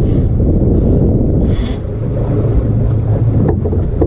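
Steady low rumble of an outboard motor pushing a small boat at slow trolling speed, mixed with wind on the microphone. Two short hissing rushes of water come in the first two seconds, and a couple of light knocks near the end.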